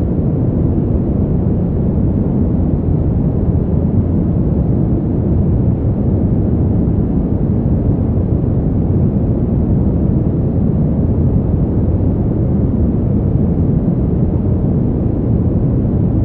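Steady brown noise: a deep, even rumbling hiss with most of its energy in the low end and little above the midrange, unchanging throughout.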